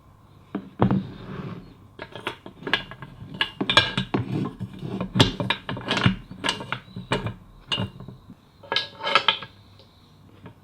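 Metal table-frame parts clinking and knocking as they are handled and fitted together, in many irregular sharp strikes, quieting briefly near the end.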